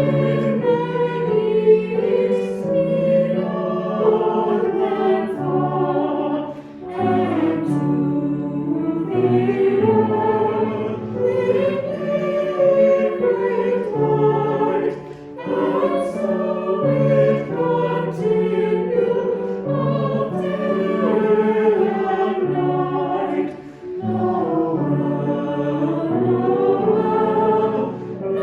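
A choir singing a hymn in long phrases, with brief breaks between them.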